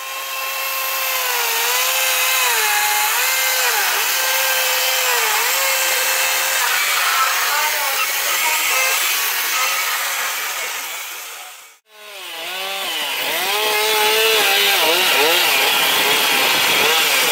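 Stihl two-stroke chainsaw carving cypress wood, the engine pitch rising and falling as it works through the cuts. It drops out abruptly for a moment a little past the middle, then the saw resumes.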